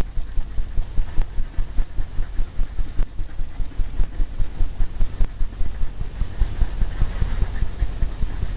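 A paintbrush scrubbing oil paint onto stretched canvas, making a quick, even run of dull low thumps, about four a second.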